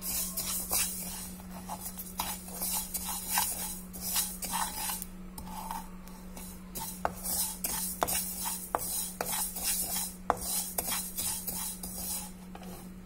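Niger seeds dry-roasting in a pan, stirred with a spatula: repeated scraping, rustling sweeps of the seeds across the pan. A few sharp clicks come in the second half as the seeds start to splutter, with a steady low hum underneath.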